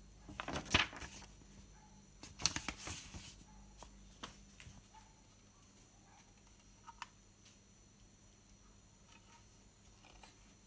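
Handling noise: two bursts of rustling within the first four seconds, then a few light clicks and taps, as a paper instruction booklet and a hard ABS plastic RC truck cab body are handled.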